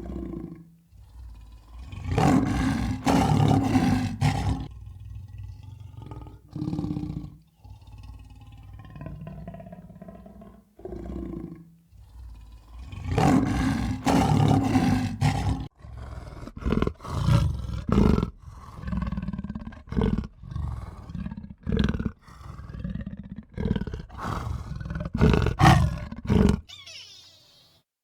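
Loud animal calls: two long drawn-out calls, then a run of shorter calls in quick succession.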